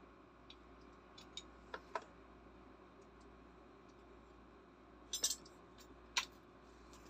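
Small metal parts and tools being handled: a brass air fitting and open-end wrenches giving light clicks and clinks, a few soft taps in the first two seconds and sharper clinks about five and six seconds in.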